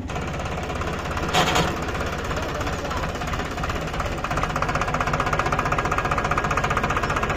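Tractor diesel engine running hard with a fast, even knocking beat, as when pulling a loaded trolley. It gets louder about four and a half seconds in, with a short burst of noise about a second and a half in.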